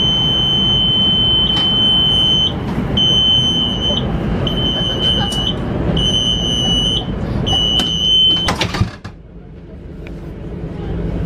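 Door-closing warning on a CRH1A-A high-speed train: a high electronic tone sounds as one long beep, then four shorter beeps about a second and a half apart. The beeping ends with a knock as the sliding passenger door shuts, about eight and a half seconds in.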